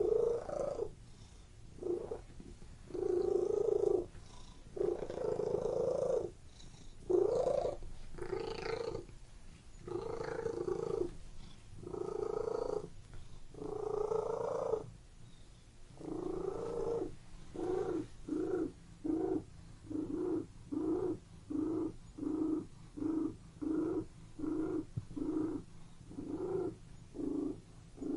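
Domestic cat purring in pulses with each breath; the pulses grow shorter and more regular, about one and a half a second, in the second half.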